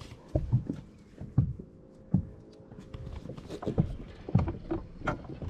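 Irregular knocks and thumps, several scattered over a few seconds, with a faint steady hum underneath.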